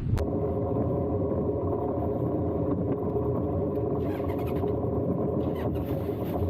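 Engine running steadily with a constant-pitched drone, no revving.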